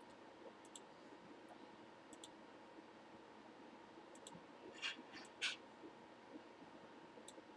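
Faint computer mouse clicks, a few scattered sharp ticks, with two louder clicks close together about five seconds in.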